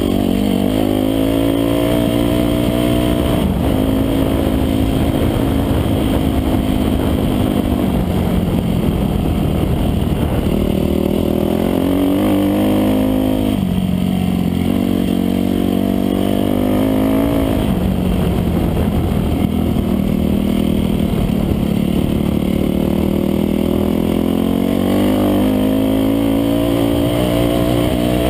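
Dirt bike engine running hard under the rider. Its pitch climbs under acceleration and drops back sharply several times.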